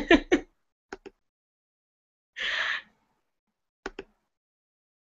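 A woman's short breathy sounds: a brief bit of voice at the start and a soft breathy exhale about two and a half seconds in, like a quiet laugh or sigh. Pairs of small clicks come about a second in and near four seconds, with silence between.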